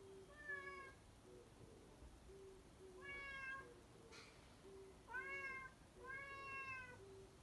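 A domestic cat meowing faintly four times, short meows about half a second long, the last one longer and arching up and down in pitch.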